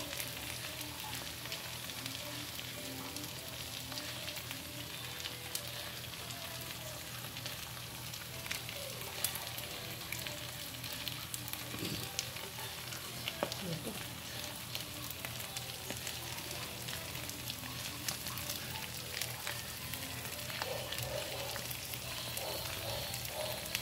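Pork sisig sizzling and crackling in a nonstick frying pan, with a slotted spatula stirring and scraping through it.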